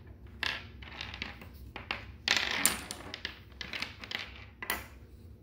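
Plastic magnetic building sticks and steel balls clicking as they snap together and clatter on a wooden tabletop: a string of sharp clicks, loudest in a cluster a little over two seconds in.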